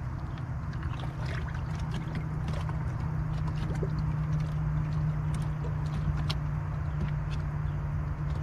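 Bass boat's livewell pump running with a steady hum, with scattered knocks and taps from handling in the boat.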